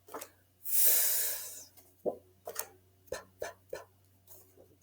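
A woman's voice making phonics letter sounds: a long breathy "fff" hiss for the letter F, then three short puffed "p, p, p" sounds for the letter P.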